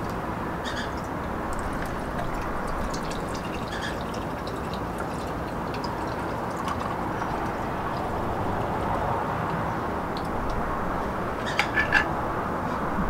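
Lemonade poured from a pitcher into a glass with ice, over a steady background hiss. A few light clinks come near the end.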